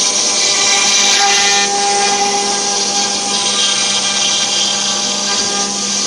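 CNC wood router's high-speed spindle running steadily with a high whine, cutting wood.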